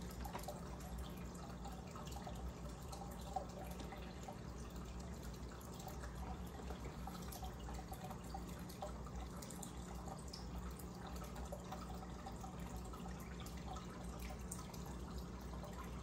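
Aquarium disc air stone bubbling steadily underwater, a fine continuous fizzing and dripping, over a low steady hum. One short click about three and a half seconds in.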